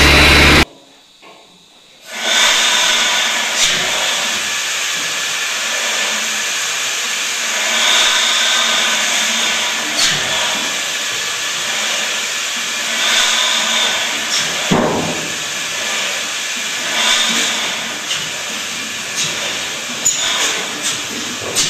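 A turbocharged inline diesel runs briefly and cuts off. About two seconds later a steady hiss of escaping air sets in around a large old stationary engine that is not yet running, broken by a few short puffs and clicks.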